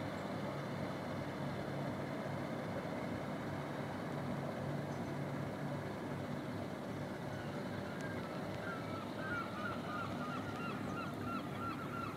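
Steady low drone of a fishing boat's diesel engine. From about nine seconds in, a bird calls in a fast run of repeated notes.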